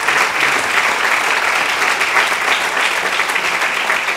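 Audience applauding, many people clapping at once, loud and steady.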